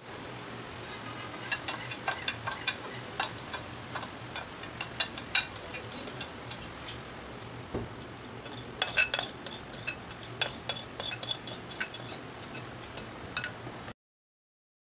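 Metal spoon clinking and scraping against glass bowls in irregular taps as set jelly is cut up and spooned out, with a busier run of clinks about nine seconds in. A faint steady hum sits underneath.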